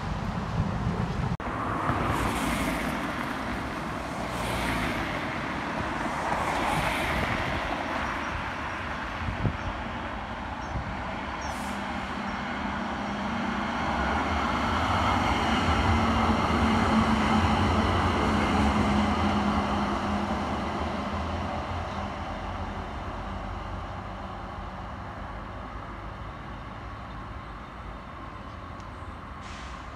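A Sheffield Supertram Siemens-Duewag articulated tram passes close by on street track, a low steady hum with the running of its wheels on the rails, loudest about halfway through and then fading as it moves away. Before it, a few road vehicles pass in short swells of noise.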